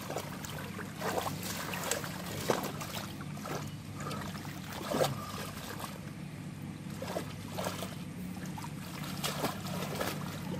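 Water splashing and sloshing in irregular strokes, as hands and bodies move through shallow river water, over a steady low background.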